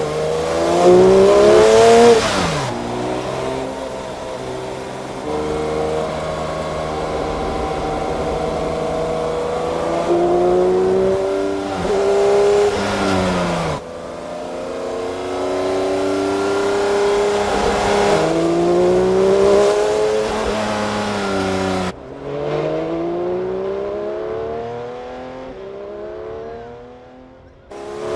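Porsche 911 S/T's 4.0-litre flat-six engine and exhaust under hard acceleration. The pitch climbs steeply, drops at each gear change, and climbs again, several times over. About three quarters of the way through, the sound turns abruptly muffled.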